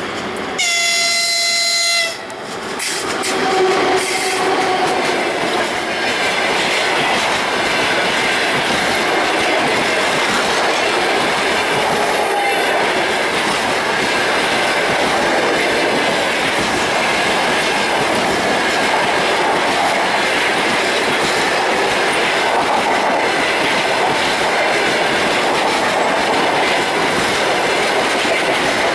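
EP20 electric locomotive sounds its horn in a short blast of about a second and a half near the start, as a greeting signal. The passenger train then passes close by, with steady wheel and rail noise and clickety-clack over the rail joints.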